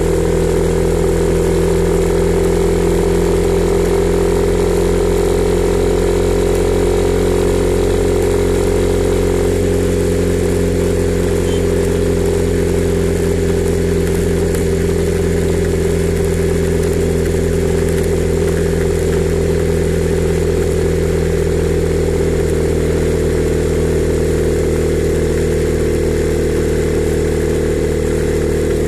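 Honda CB300R's single-cylinder engine running at a steady, nearly constant engine speed, with no sharp revs.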